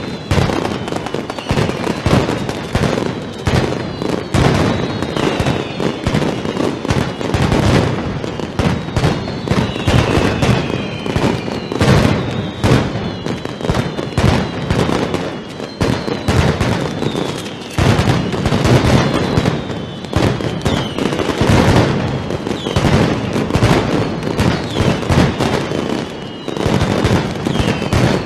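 Mascletà firecrackers: a dense, unbroken barrage of bangs from strings of masclets going off in rapid succession. High whistling tones fall in pitch over the bangs again and again.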